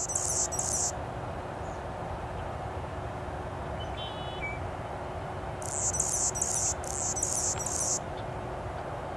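Male Anna's hummingbird singing: a short run of very high-pitched, rapid notes at the start and a longer run about six seconds in, over a steady background hiss.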